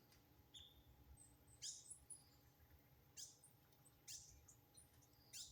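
Small green birds calling faintly: four short chirps, each sweeping down in pitch, spaced a second or so apart, with fainter thin high tweets between them.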